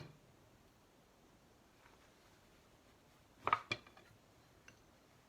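A quiet spell broken by two or three sharp hard clacks close together about three and a half seconds in, then a small tick: steel and stone being handled as the chisel moves from the Washita to the hard Arkansas oilstone.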